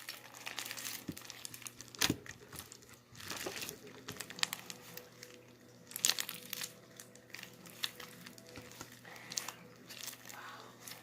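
Homemade slime being squished and stretched by hand, giving scattered sticky clicks and crackles, two sharper pops about two and six seconds in. The slime has gone soft and runny: 'melting'.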